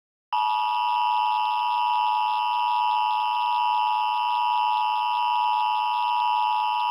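Emergency Alert System attention signal: a steady electronic two-tone alarm tone. It starts about a third of a second in after a brief silence and holds at one unchanging pitch.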